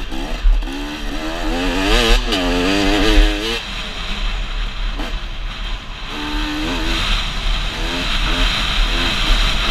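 Dirt bike engine revving up and down again and again as the rider works the throttle and gears along a motocross track, heard from the rider's helmet, with wind buffeting the microphone.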